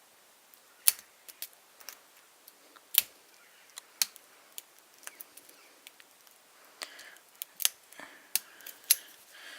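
Lock pick and tension wrench working the pins of an ABUS 6540 padlock: irregular sharp metal clicks and light scrapes, a few of them much louder than the rest, as the lock is picked open.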